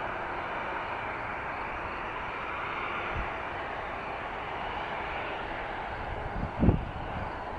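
Boeing 737-300's CFM56-3 turbofan engines running steadily. A brief low thump comes about six and a half seconds in, the loudest moment.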